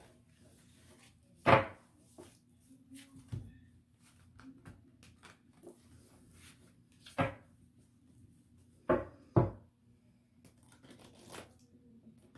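A deck of tarot cards shuffled by hand, a soft rustle of cards broken by four sharp knocks of the deck against the table: one about a second and a half in, one about seven seconds in, and two close together at about nine seconds.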